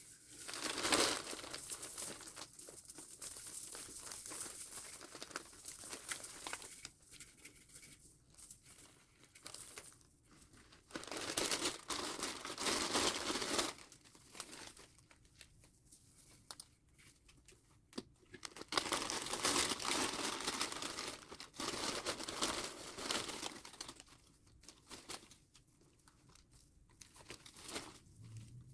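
Paper and packaging crinkling and tearing in three main bursts of a few seconds each, with quieter rustling between.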